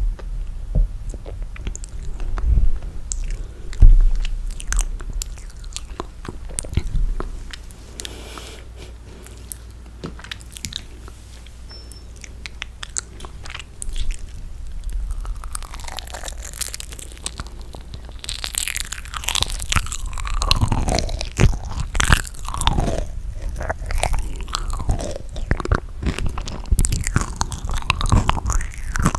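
Close-miked chewing of gooey toasted marshmallow: sticky, wet mouth sounds. Sparse clicks at first, a quieter stretch near the middle, then thick, continuous chewing over the second half.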